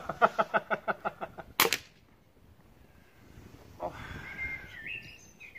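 A man laughing in a quick run of ha-ha-ha bursts, then a single sharp crack about a second and a half in, followed by a faint rustle.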